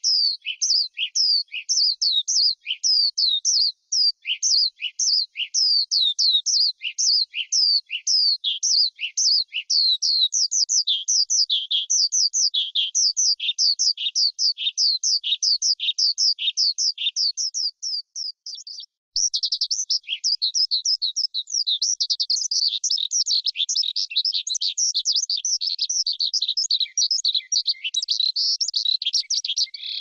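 A lark singing a long, unbroken song of quick, high, downward-sweeping chirps. The notes come faster and run together in a dense warble from about a third of the way in, with a brief break just past the middle.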